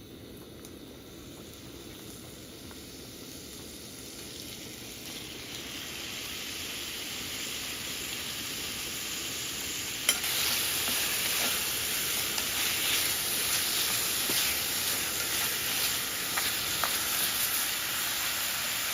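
Food sizzling in a hot pan, growing steadily louder. About halfway through there is a sharp click, and the sizzling is louder after it.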